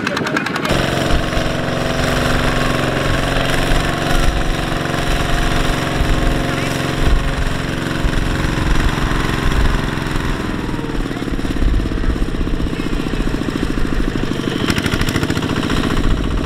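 Kubota two-wheel walking tractor's single-cylinder diesel engine running hard under load, pulling a trailer of rice sacks through mud; its pitch sags for a moment about ten seconds in.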